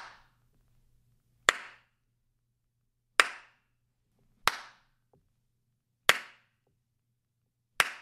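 Single hand claps, five of them about one and a half seconds apart, each followed by a short reverberation tail from an untreated living room. They are picked up by Shure SM58 and Samson Q2U handheld dynamic microphones to show how much room reverb each one catches. A faint steady low hum sits underneath.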